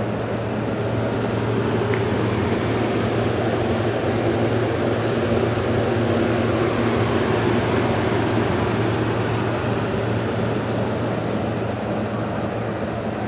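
Steady rushing noise with a constant low hum beneath it, swelling slightly through the middle and easing off near the end.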